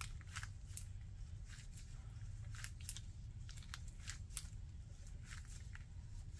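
Scattered light clicks and rustles of gloved hands handling parts at the bottom of an aluminium engine block, irregular and a few per second, over a low steady hum.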